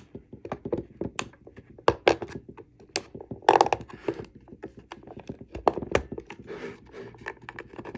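Plastic housing of a Tesla Model 3 battery contactor being handled and pried at with a flat-blade screwdriver: a string of irregular clicks and knocks, with a louder crack about three and a half seconds in.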